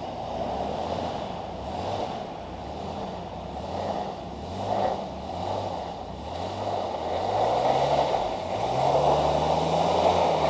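Chevy S-series Blazer's engine revving in repeated short surges as it drives through mud, then held at a higher rev near the end, over a steady rushing noise. The 4x4 is not engaging because the vacuum actuator has a hole, so the front wheels are not driven.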